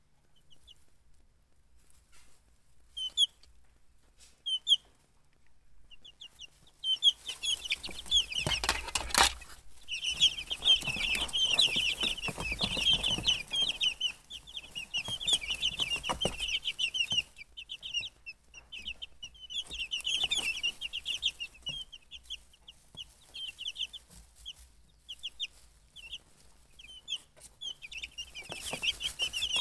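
Baby chicks peeping: a few scattered peeps at first, then many chicks peeping over each other from about seven seconds in, with short lulls. There is a brief noisy burst about nine seconds in.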